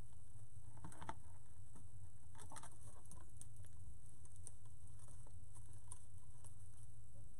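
Hands tying fabric strips onto a wire wreath frame: soft rustling and scattered light clicks, busiest about a second in and again around the middle, over a steady low hum.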